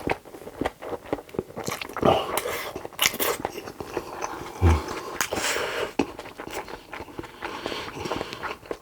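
Close-miked eating sounds: wet chewing, lip smacks and small irregular clicks from a mouthful of Korean food.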